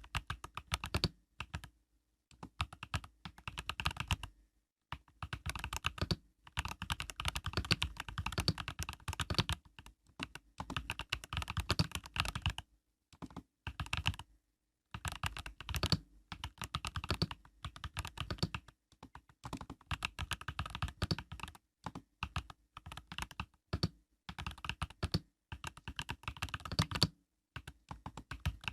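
Typing on an Epomaker EK68 mechanical keyboard with Epomaker Budgerigar tactile switches (POM stems): rapid runs of keystrokes in bursts of a few seconds, broken by short pauses.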